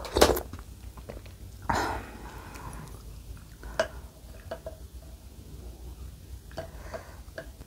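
Close-miked eating: a loud slurp of soup from a wooden spoon just after the start and a longer slurp about two seconds in. Then come soft chewing and several light clinks of the wooden spoon against the glass bowl, some with a brief ring.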